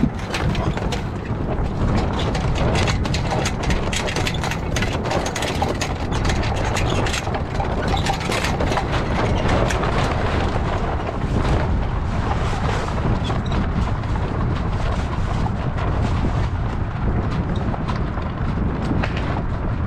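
Wind rumbling over the microphone on an open deck, with the luffing mainsail flapping and crackling as it spills the wind.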